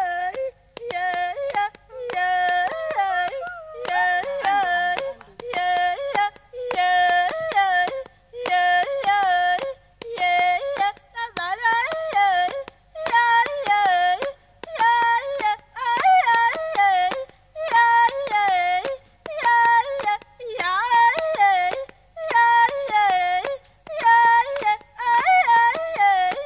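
African pygmy vocal music: yodeled singing in short repeating phrases of about a second each, the voice leaping between a low and a high note, with sharp percussive clicks throughout.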